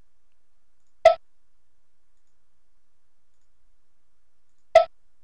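Two single clicks of a computer mouse button, the first about a second in and the second nearly four seconds later.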